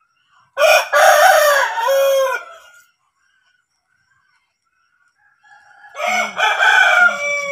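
A rooster crowing twice: one crow about half a second in, lasting about two seconds, and another starting about six seconds in.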